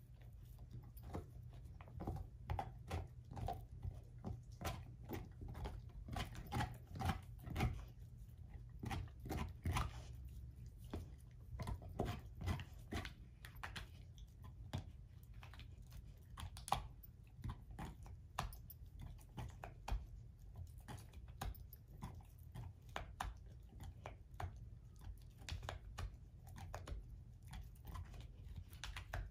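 German shorthaired pointer gnawing an air-dried, hair-on whole pig foot: irregular crunching and chewing as her teeth work the bone and skin, with spells of rapid crunching.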